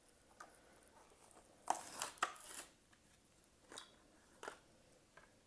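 Hot Wheels car's cardboard-and-plastic blister package being torn open: a cluster of crackling tears about two seconds in, then two short ones near the end.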